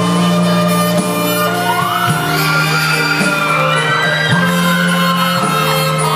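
Live stage music: a backing track holds steady low notes, and from about two seconds in a lead melody slides and bends between notes above it.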